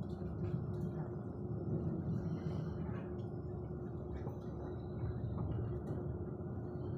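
ČD Railjet passenger train running at speed, heard from inside the coach: a steady low rumble with a faint steady hum over it.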